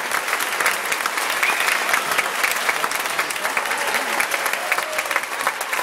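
Audience applauding: many hands clapping steadily, with a few voices mixed in.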